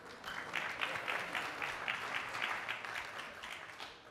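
Audience applauding, swelling quickly just after the start and dying away near the end.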